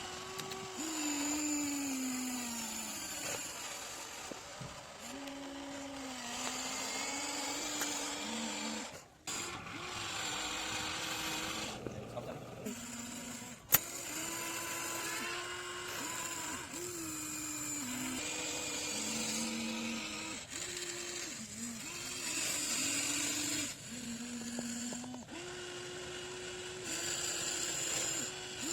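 Huina 1593 RC excavator's electric motors whining as it digs, the pitch stepping up and down as the boom, arm and bucket move in turn. One sharp click about halfway through.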